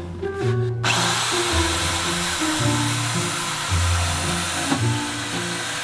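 Power drill running in a long steady whirr, starting about a second in with a brief dip near the end, over background music.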